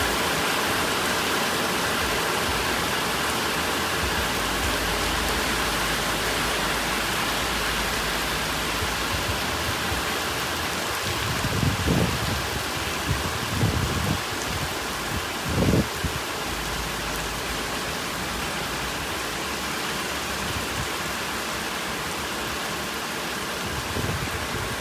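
Steady heavy rain falling, with a few short low rumbles about halfway through.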